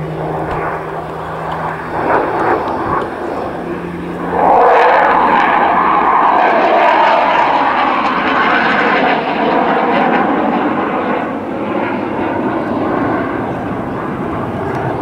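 A Eurofighter Typhoon's twin jet engines and a Spitfire's piston engine passing overhead together in formation. A steady hum gives way, about four and a half seconds in, to a loud roar that slowly fades.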